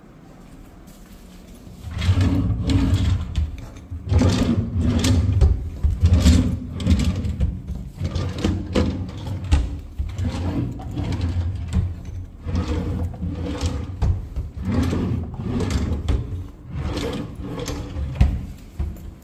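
Wooden wardrobe drawers being pulled open and pushed shut over and over, starting about two seconds in. The drawers rumble on their runners and knock sharply each time one shuts.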